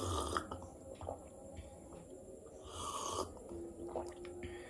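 A person breathing out hard through the mouth twice, about three seconds apart, against the burn of very spicy noodles, with a few small clicks near the end.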